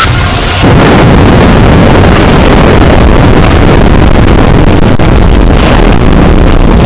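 A short bit of music cuts off about half a second in, giving way to a very loud, heavily clipped, distorted noise with a dense low rumble, like an over-amplified engine or wind sound effect.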